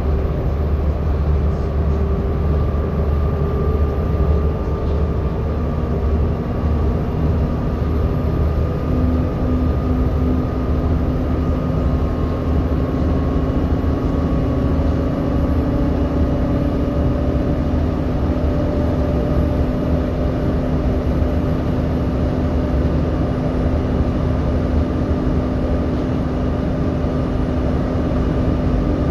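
Volvo B7TL bus's six-cylinder diesel engine running, heard from the lower saloon as a steady low rumble, with the engine cooling fan's whine that comes in about six seconds in, grows stronger a few seconds later and then holds.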